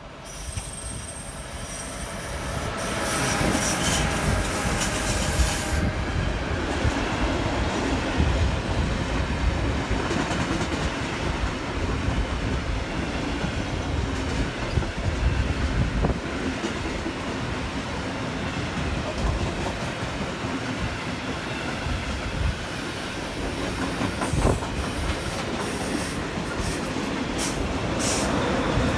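A train passing close by on the track, its wheels squealing on the rails in the first few seconds, then a steady rumble of wheels on rails with a few sharp clicks near the end.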